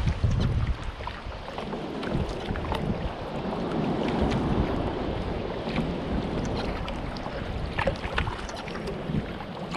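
Sea water sloshing and splashing against a kayak, with many small splashes ticking throughout. Wind buffets the microphone in gusts, heaviest at the start.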